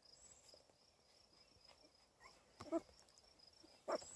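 A week-old beagle puppy giving short, faint squeaks about two-thirds of the way in and again near the end, over a faint steady cricket chirping.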